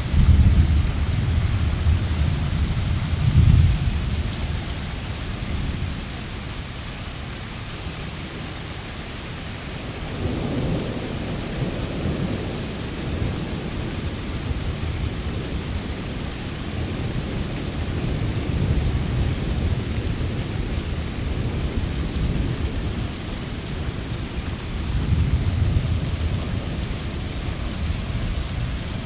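Steady rain with rolling thunder. A loud rumble starts right at the beginning and swells again about three seconds in, then weaker rumbles come and go several more times.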